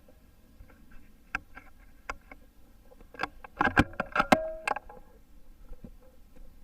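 A quick series of sharp mechanical clicks and knocks, sparse at first, then dense and loudest in the second half, with a brief metallic ring near the end of the cluster.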